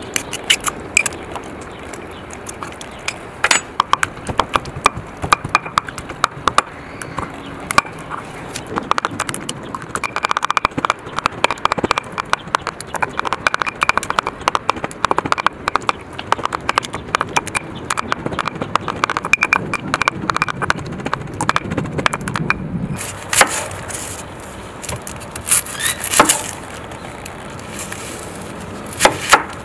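Stone pestle pounding and grinding roasted tomatoes in a granite mortar: many irregular stone-on-stone knocks. Near the end, a few sharp strokes of a knife cutting an onion on a wooden board.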